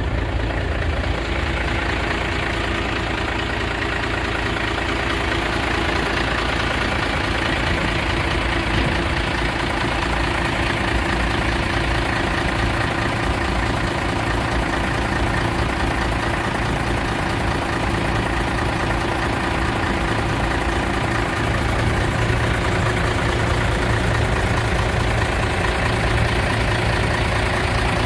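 Mercedes-Benz SK 2024 AK tipper truck's diesel engine idling steadily, growing a little louder about two thirds of the way in.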